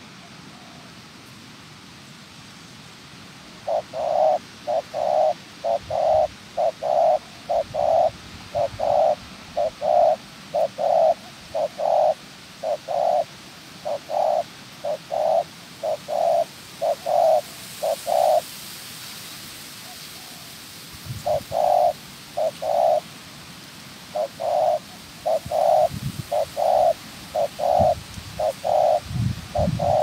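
Caged decoy spotted dove calling a short, repeated coo about twice a second, breaking off for a couple of seconds midway and then starting again: the bowing coo a male decoy gives to draw a wild female dove to the trap. A few low thuds come near the end.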